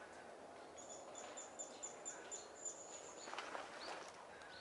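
A small bird calling: a quick run of high, evenly spaced chirps, about four a second, lasting a couple of seconds, over faint outdoor background noise. A short rustle follows about three and a half seconds in.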